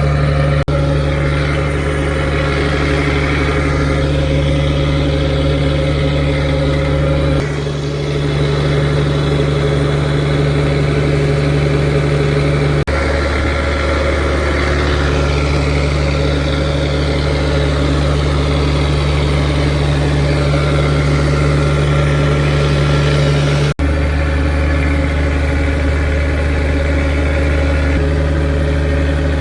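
A fishing boat's inboard engine running steadily with a deep, constant hum, briefly dipping about eight seconds in and cutting out for a moment near the end.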